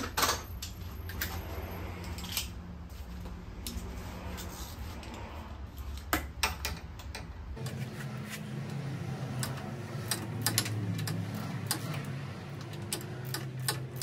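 A hand ratchet with an extension clicking repeatedly as it loosens the handlebar clamp bolts on a Harley-Davidson Dyna. Scattered clinks and knocks of tool handling come first, with the clicks bunching up in the second half over a low steady hum.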